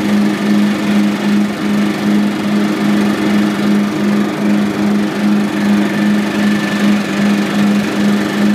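Toro 36-inch Proline commercial walk-behind lawn mower running steadily, its engine hum throbbing with an even beat about three times a second.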